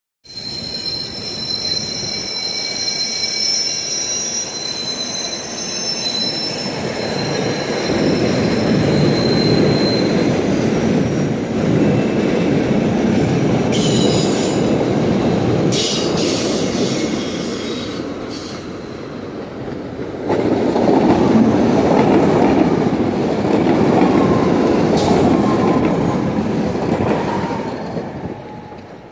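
SEPTA Regional Rail push-pull passenger coaches rolling past close by. Their wheels squeal high for the first few seconds, then give way to a steady rumble with a few clacks over rail joints. The rumble swells again about two-thirds through as a Silverliner IV electric train approaches.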